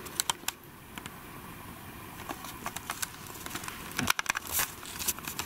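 Scattered clicks, knocks and rustles of a handheld camera being moved and handled, over a steady low hiss, with a sharper knock about four seconds in.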